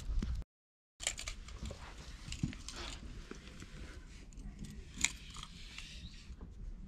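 Close handling noise: rustling and scattered clicks as a hand strokes a cat right beside an action camera, with a sharp click about five seconds in. The sound drops out for about half a second near the start.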